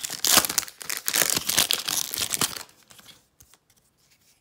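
A Panini Unparalleled football card hobby pack's wrapper being torn open and crinkled by hand: dense crackling that stops after about two and a half seconds, followed by a few faint ticks as the cards are handled.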